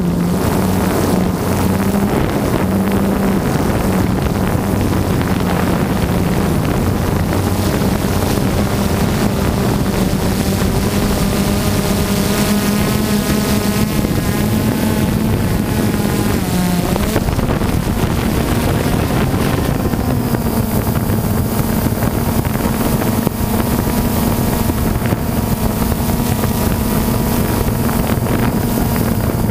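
Multirotor drone's motors and propellers running: a steady, loud buzzing hum that shifts slightly in pitch partway through, with wind noise on the onboard microphone.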